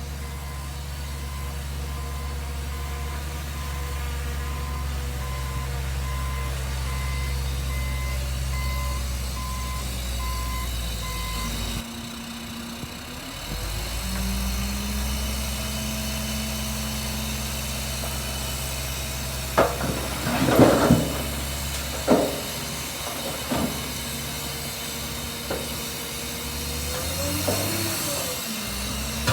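Heavy diesel earthmoving machinery running, with a reversing alarm beeping evenly for the first twelve seconds or so. The engine then drops and revs back up, and a run of loud bangs comes about two-thirds of the way in, with another near the end.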